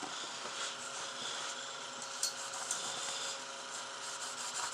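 Wet sandpaper rubbing over a silver pendant by hand: a soft, steady scratchy rubbing.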